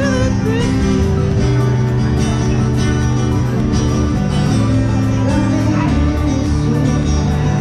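Music with guitar.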